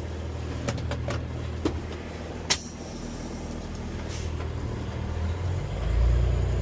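Large rollback tow truck's engine idling steadily, with a few sharp clicks in the first couple of seconds. Near the end the engine note drops lower and grows louder as the truck pulls away.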